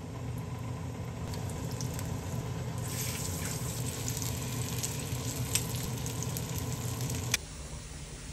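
Shrimp and chive pancakes frying in oil in a pan, sizzling with scattered small crackles over a steady low hum. The sound cuts off abruptly about seven seconds in.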